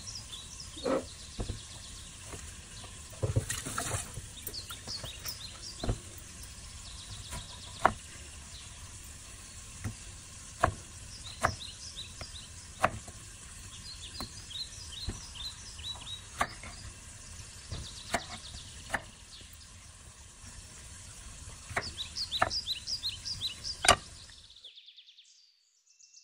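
Hand-forged chef knife cutting pineapple on a wooden cutting board: sharp taps of the blade striking the board every second or so over a steady hiss. Small birds chirp in quick runs in the background. The sound cuts off abruptly near the end.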